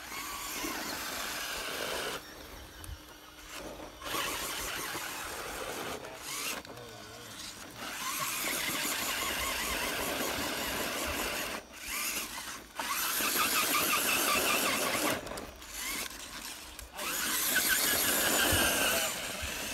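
RC rock crawler's electric motor and gear drive whining in repeated bursts of throttle while it climbs steep rock: about five bursts of two to three seconds each, with short pauses between them.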